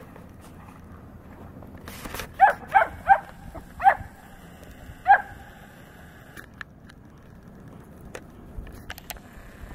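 A dog barking five times, four in quick succession about two to four seconds in and a last one about a second later. The barks are short and fairly high-pitched.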